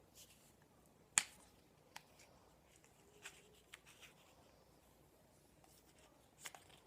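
Scattered small sharp clicks and taps, the sharpest about a second in, from working a cardboard cap out of a Roman candle firework's cardboard tube.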